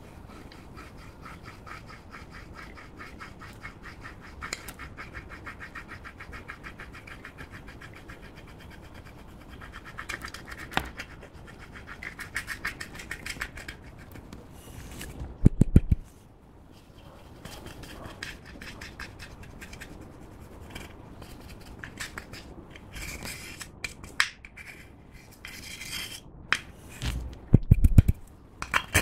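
A plastic spatula scraping and crumbling pressed blush powder out of a compact, a dense run of fine scratching strokes, with a few loud knocks about halfway through and again near the end.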